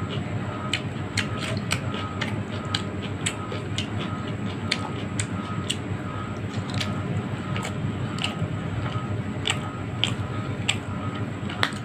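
Close-up eating sounds of a person chewing fried tilapia taken by hand: irregular wet mouth clicks and smacks. Under them are a steady low hum and a faint, regular tick about twice a second.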